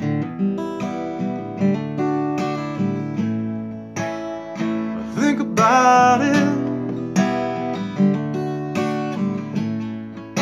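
Seagull acoustic guitar strummed in a steady rhythm, with a Hohner harmonica in a neck rack playing a short wavering, bending phrase about halfway through.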